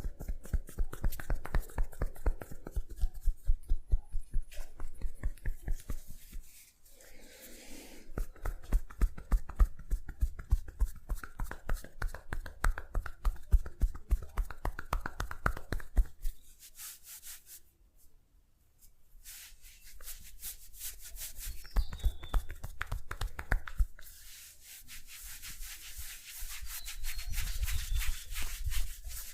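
Hands rubbing and patting a person's head in a brisk massage, several quick rhythmic strokes a second. The strokes thin out around the middle, then turn to a softer, hissier rubbing near the end.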